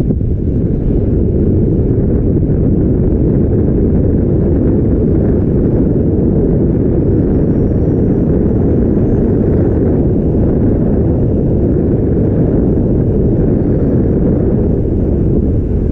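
Wind buffeting the camera's microphone during a fast ski descent: a loud, steady, low rumble.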